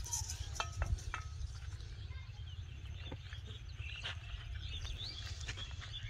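Small birds chirping over a steady low rumble, with a few sharp taps and rustles in the first second or so.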